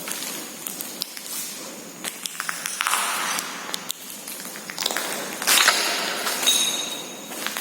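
Footsteps crunching and scraping over a floor strewn with broken debris, with scattered sharp clicks and scuffs.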